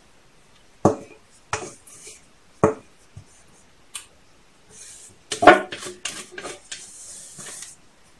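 Spatula scraping cake batter out of a stainless steel mixing bowl. Several sharp taps of the spatula and bowl come about a second apart, then a louder cluster of knocks and clatter in the middle, and a scraping rub near the end.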